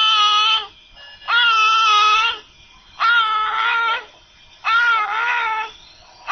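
Newborn's expiratory grunting (quejido): a high-pitched, moan-like sound made on each breath out, as the baby exhales forcefully against a closed glottis. It comes about four times, each about a second long, in a steady rhythm. It is a sign of respiratory distress with hypoxia.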